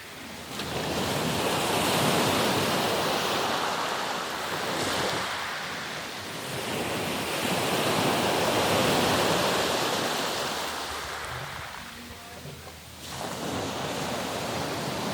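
Sea surf: waves breaking and washing up the shore, swelling and ebbing twice, with a brief lull near the end before the next wave comes in. Wind on the microphone is mixed in.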